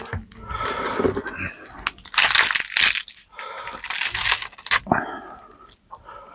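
Close-up eating sounds of crunching and chewing the crisp, deep-fried skin of crispy pata (pork knuckle). The loudest crunch comes about two seconds in.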